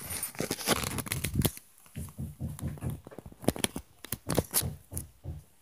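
A rapid, irregular clatter of sharp knocks and low thumps with crackling, starting suddenly and stopping about half a second before the end.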